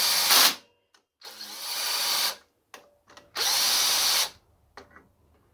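Power drill driving the clutch spring bolts into a dirt bike's pressure plate in three short runs, one bolt after another in a crisscross pattern; the middle run grows louder as it goes, and a couple of faint clicks follow near the end.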